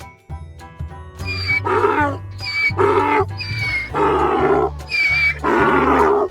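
A donkey braying in a repeated hee-haw, about four cycles: each shorter, higher inhaled 'hee' is followed by a longer, lower 'haw', starting about a second in. A steady children's music bed plays underneath.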